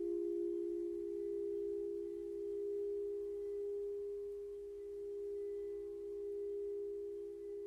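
Crystal singing bowls holding two steady pure tones close together in pitch, slowly swelling and fading in loudness.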